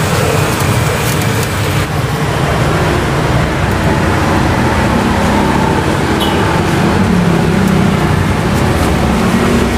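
Steady road traffic noise: a continuous low rumble of passing vehicles' engines and tyres.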